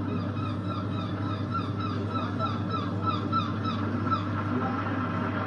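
A bird calling in a quick series of short falling notes, about three a second, stopping about four seconds in, over a steady low hum.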